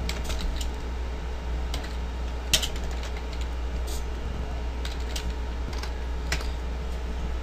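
Computer keyboard keys clicking irregularly as a short phrase is typed, with one louder click about two and a half seconds in. A steady low hum runs underneath.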